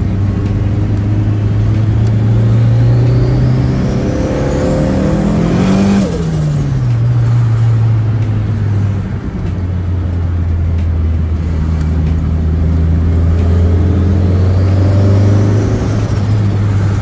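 Turbocharged pickup engine pulling under acceleration, its turbo whistle rising steeply in pitch. The whistle peaks about six seconds in, where the engine note drops as the throttle lifts. A second, smaller turbo whistle rises and falls near the end.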